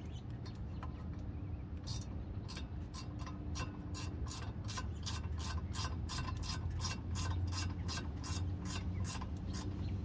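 Ratchet wrench clicking in short, even strokes, about three or four clicks a second, starting about two seconds in, as a 10 mm nut on the rear brake bracket is run down. A steady low hum lies underneath.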